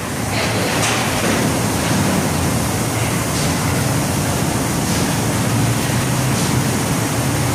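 Steady rushing noise with a low hum underneath, from machinery running on the construction site.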